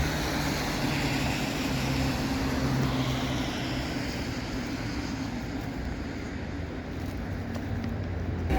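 Ferrari Daytona SP3's V12 running steadily at low revs, a low even engine note over tyre and road noise.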